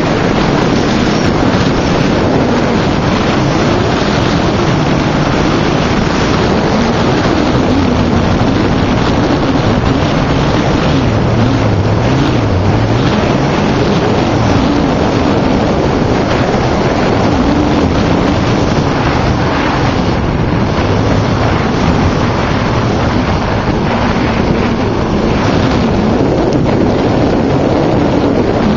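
Loud, steady rush of wind buffeting the microphone of a skier moving downhill at speed, with a wavering low rumble.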